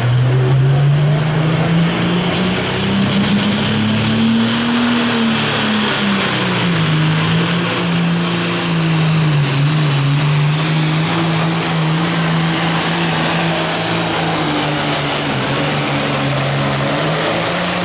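John Deere pulling tractor's turbocharged diesel engine at full power, dragging a weight sled down the track. Its pitch climbs over the first five seconds, then eases back and holds, wavering, as it pulls under heavy load. A high whine rises steadily in pitch over the first few seconds.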